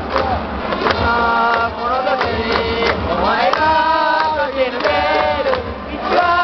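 Large crowd of baseball fans in a cheering section singing a player's cheering song together, loud and continuous.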